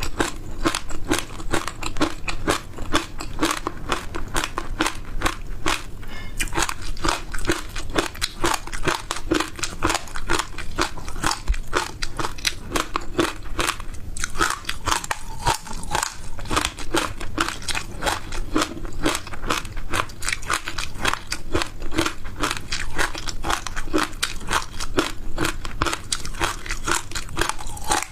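Close-miked crunching and chewing of frozen ice, with dense crisp crunches following one another without pause.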